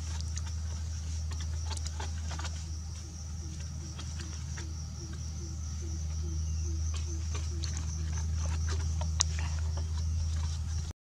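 Wooden chopsticks clicking and scraping against a stainless-steel tray while stirring flour into beaten egg: light, irregular clicks. Under them runs a steady high insect drone and a steady low rumble.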